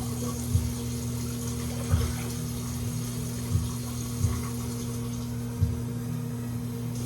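Kitchen tap running water into a measuring cup, turned off about five seconds in. Background music with a low, irregular thump and a steady hum plays under it.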